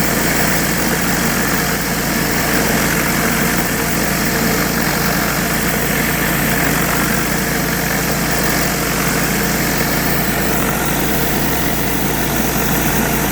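Pressure washer running steadily: an engine hum under the even hiss of high-pressure water spraying from a surface cleaner onto the ground.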